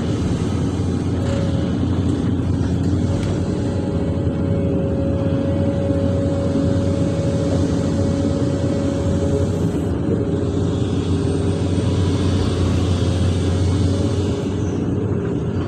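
Hydraulic excavator's diesel engine and hydraulics heard from inside the operator's cab, running steadily at working revs with a steady higher tone over the low engine drone.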